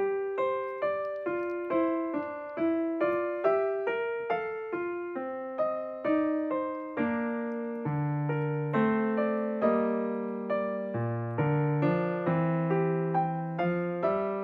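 Background piano music: a calm melody of single struck notes, about two to three a second, each fading away, with lower chords joining in the second half.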